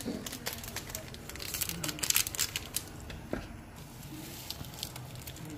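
Plastic seasoning packet crinkling and being torn open, a dense run of sharp crackles that is loudest about two seconds in.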